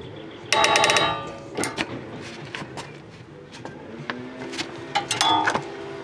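Socket ratchet on a rusted rear strut bolt, clicking in two quick runs, about half a second in and again near five seconds, with single metallic ticks and knocks between as the handle is worked back and forth to free the seized bolt.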